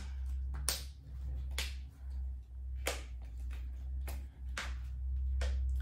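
Stiff plastic packaging around a small paring knife being squeezed and pried at by hand, giving a series of sharp clicks and crackles about once a second, over a low steady hum. The packaging is hard to open.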